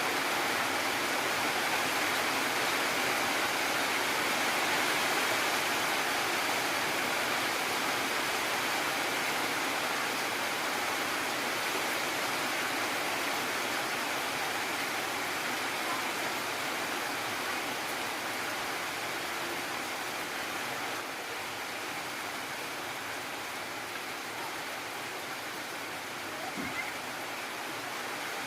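Heavy rain falling steadily, a dense even hiss that eases slightly toward the end.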